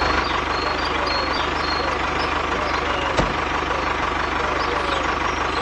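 Tractor engine sound running steadily, with a fast low putter, as a toy tractor pulls a loaded trolley. A single sharp click about three seconds in.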